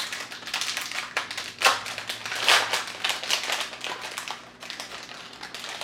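Hands rummaging through kit packaging: a run of crinkling rustles with small taps and clicks, some louder than others.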